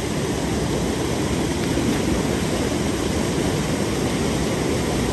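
Steady rushing of river water, with a low rumble underneath.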